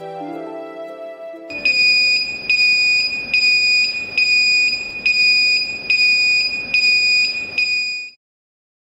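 Background music, then, about a second and a half in, the built-in siren of a Qlight QWTD wall-mount LED signal tower sounds a loud, high-pitched electronic alarm tone. The tone pulses about eight times, a little under a second apart, and cuts off suddenly near the end.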